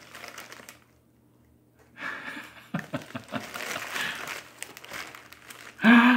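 Packaging crinkling and tearing as a mystery parcel is cut open, with small clicks and rustles, broken by a short pause. A brief loud vocal sound, a breath or exclamation, comes near the end.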